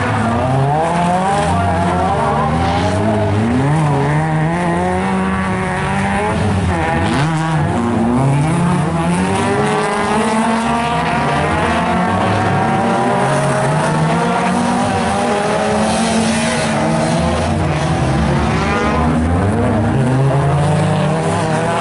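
Several small hatchback race cars racing on a mixed dirt-and-tarmac circuit, their engines revving hard. The overlapping engine notes keep rising and falling in pitch as the cars accelerate, shift and brake for the corners.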